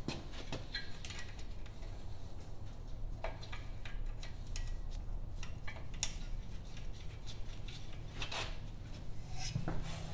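Scattered metal scrapes and clicks as a steel muffler is worked and twisted onto a garden tractor's twin-cylinder engine exhaust, over a steady low hum.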